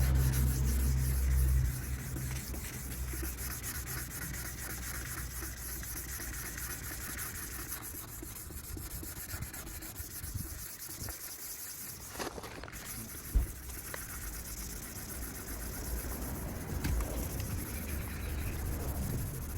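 600-grit wet-and-dry sandpaper rubbing over a plastic headlight lens with water: steady scratchy wet sanding. A loud low rumble in the first couple of seconds stops abruptly, and there is a single knock about thirteen seconds in.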